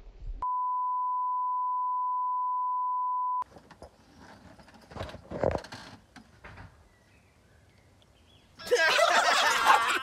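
A steady, pure one-tone bleep of about three seconds starts about half a second in, with all other sound cut out beneath it: an edited-in censor bleep. Faint knocks and rustles follow, then near the end a much louder, busy burst of sound lasting about a second and a half.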